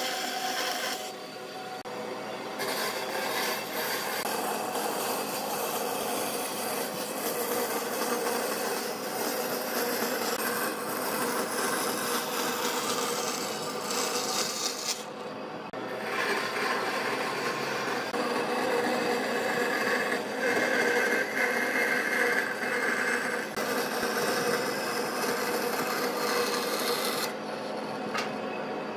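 Band saw cutting curves through wooden boards: the blade hisses and rasps in the wood over the saw's running motor. The cutting sound thins out briefly a few times as one cut ends and the next begins.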